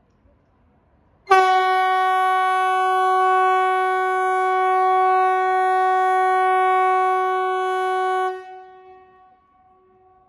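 Kockums Typhoon MKT 75/370 civil-defence siren sounding one loud, steady blast at a single pitch of about 370 Hz, rich in overtones. It starts abruptly about a second in, holds for about seven seconds, then cuts and fades away. It is one blast of the warning signal on the quarterly siren test.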